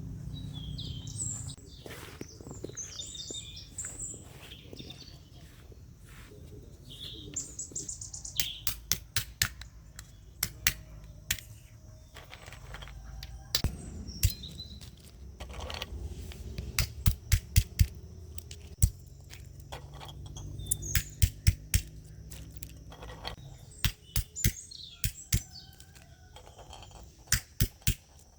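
Small birds chirping, with runs of sharp clicks or knocks, several a second, coming in bursts throughout; the knocks are the loudest sounds.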